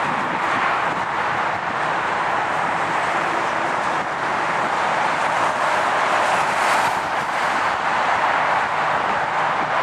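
Jet aircraft engine noise: a steady rushing roar with no clear pitch and an even level throughout.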